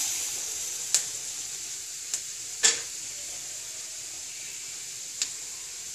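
Mustard seeds and split black gram (urad dal) sizzling in hot oil in an aluminium kadai: a steady high sizzle that eases a little. It is stirred with a slotted spatula, and a few sharp clicks break through.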